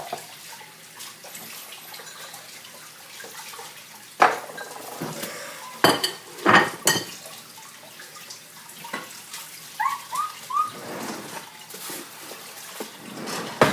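Kitchen tap running into a sink as dishes are handled, with several sharp clatters of plates and cutlery. About ten seconds in there are three short rising squeaks.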